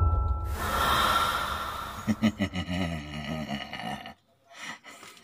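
A rushing whoosh that fades, then a woman's drawn-out, wavering laugh in short pulses, broken off near the end.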